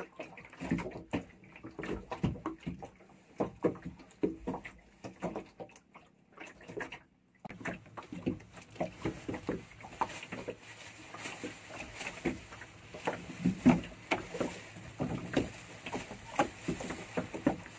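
Irregular knocks and taps of handling on a small wooden fishing boat. After a brief drop-out about seven seconds in, a steady hiss of wind and rain sets in beneath continuing knocks against the boat.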